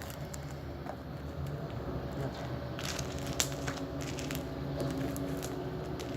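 Hands squeezing and kneading crunchy slime that has small beads and bits of plastic drinking straw mixed in, giving soft squelches and crackly clicks, the sharpest about three seconds in.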